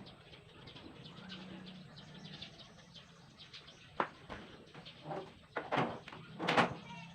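Birds calling, with a sharp knock about four seconds in and several loud short noises near the end.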